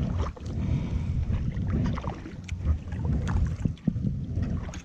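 Wind rumbling unevenly on the microphone of a kayak out on a lake, with scattered small splashes and knocks of water and paddle.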